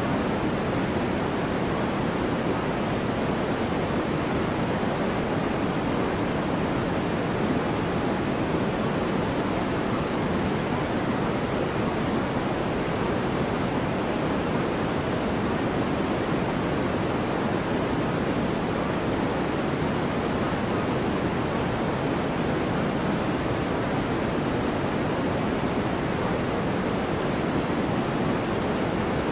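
Steady pink noise, an even hiss that never changes in level, serving as the masking track of a subliminal recording.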